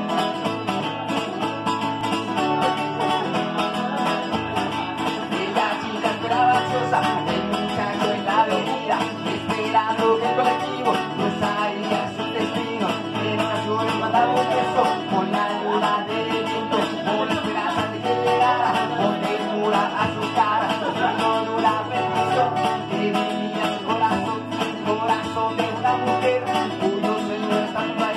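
Acoustic guitar played live, a steady run of chords without a break.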